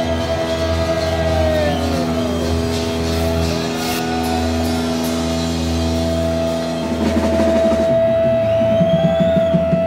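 Live rock band playing a held chord without vocals, with one note sliding down about two seconds in. From about seven seconds in, the drum kit comes in louder with rapid drum and cymbal hits.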